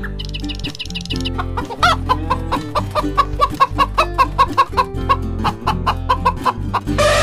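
Chicken clucking over light background music: a quick run of high chirps in the first second, then a long run of short, evenly spaced clucks. A louder, rougher animal call starts near the end.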